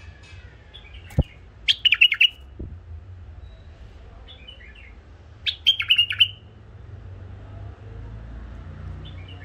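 White-eared bulbul singing two short bursts of quick, clipped chattering notes, about two seconds in and again past the middle, with a few fainter calls between. There is a sharp knock just before the first burst.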